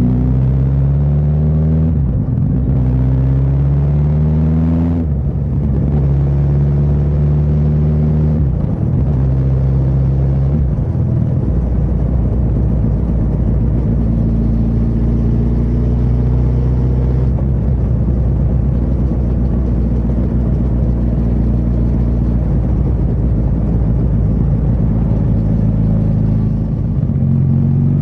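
Suzuki GSX1300R Hayabusa's inline-four engine accelerating up through the gears, its pitch rising and dropping back at each shift about every two to three seconds, then running at a steady cruise for the rest of the time.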